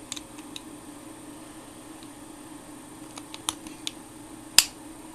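Scattered light clicks and taps of small objects being handled, with one sharper click a little before the end, over a steady low hum.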